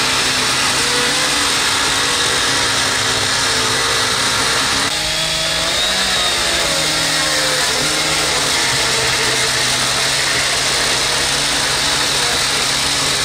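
Petrol chainsaw running steadily as it cuts into a wall panel, its pitch shifting a little about five seconds in.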